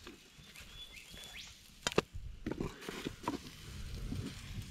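A sharp knock about two seconds in, followed by several lighter clicks and taps, from camp cooking gear being handled at the pan over the fire.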